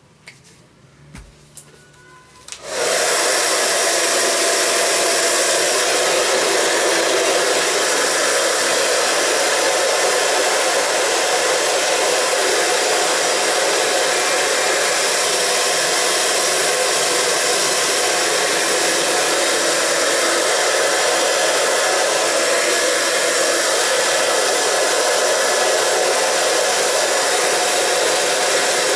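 A few light handling clicks, then a handheld hair dryer switches on about three seconds in and blows steadily while drying and styling hair.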